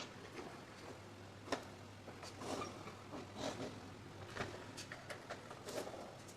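Light, irregular clicks, taps and scraping from hands working on a toy remote-control car's plastic parts during a wheel repair, with one sharper click about a second and a half in.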